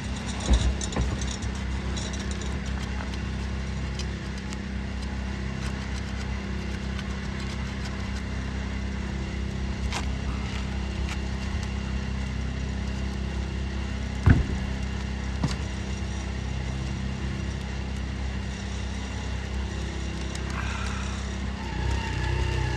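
A steady low mechanical hum, like an engine running nearby, with a few sharp clicks and knocks from working on roof shingles; the loudest knock comes about two-thirds of the way through.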